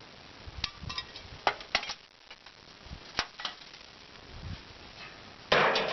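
Scattered light clicks and knocks, like pieces of a shot-up computer case being handled, followed by a short burst of noise near the end.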